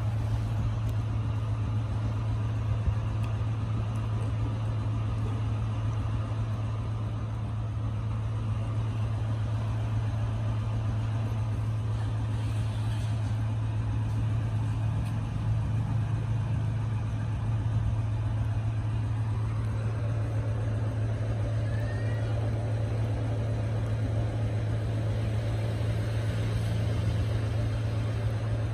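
A motor running steadily with an even low hum.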